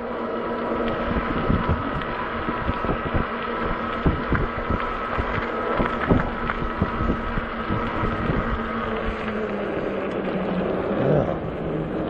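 Ecotric 20-inch e-bike under way: a steady whine from its electric hub motor over tyre and road noise, with a run of clicks and knocks from the bike rattling over bumps through the middle.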